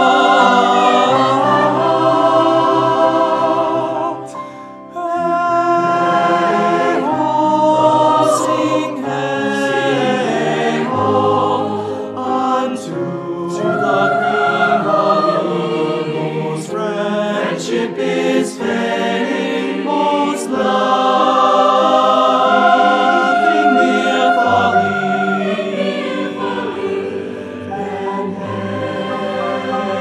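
Large choir singing in several parts, holding sustained chords with the sibilants of the words audible, and a brief break about four seconds in.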